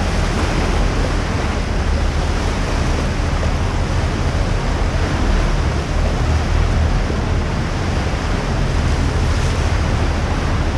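Tour boat under way on open water: a steady low engine drone mixed with water noise and wind buffeting the microphone.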